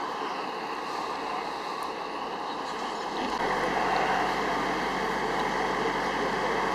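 Steady vehicle engine noise, as from idling trucks. About three seconds in it changes to a louder, steadier low hum.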